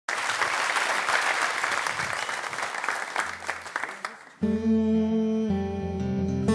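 Studio audience applauding, dying away over about four seconds, then an acoustic guitar comes in with sustained strummed chords.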